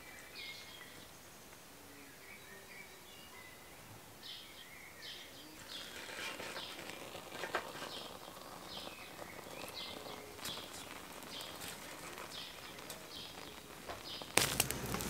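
Small birds chirping and singing in short repeated phrases while a kindling fire of dry twigs begins to crackle faintly. Near the end, louder crackling and snapping starts as the twigs catch.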